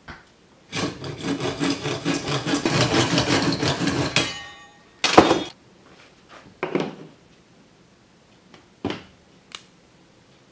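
Hand saw cutting through PVC pipe held in a vise: rapid rasping strokes for about three and a half seconds, ending as the blade cuts through. Then a loud knock, followed by a few lighter clacks of PVC pipe and fittings handled on a hard table.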